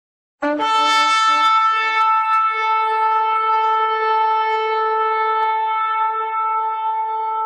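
Shofar blast: a long horn note that starts suddenly about half a second in, sounds a brief lower note, then jumps up and holds one steady tone.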